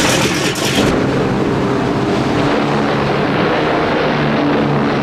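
Piston aircraft engines droning steadily, several slightly wavering engine tones over a rushing noise, with a rapid clatter of sharp bangs in the first second.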